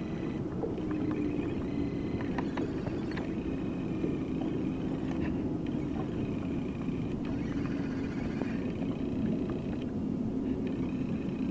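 Boat motor running steadily.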